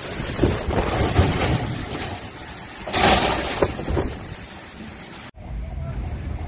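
Heavy driving rain and gusting wind, with wind buffeting the phone's microphone and a loud gust about three seconds in. Near the end it cuts off abruptly and a quieter steady low rumble takes over.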